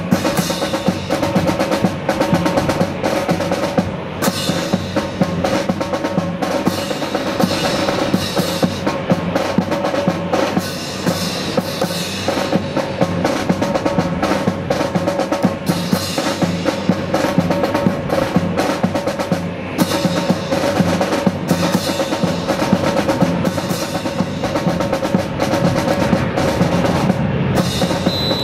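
Drum-led music playing steadily, with a quick, even beat of sharp drum strikes over a sustained accompaniment.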